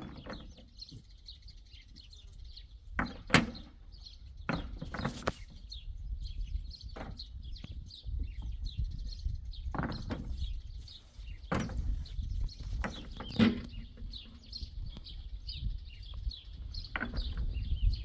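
Stones being gathered and tossed into a tractor trailer: a string of irregular hard knocks and clatters, about ten in all, under birds chirping steadily.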